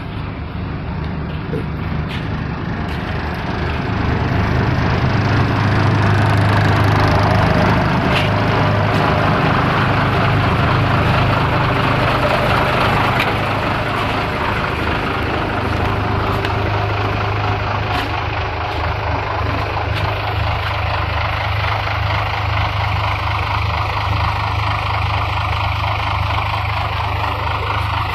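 Vehicle engine running steadily while being warmed up. It gets louder from about four seconds in, then eases back about halfway through and runs on evenly.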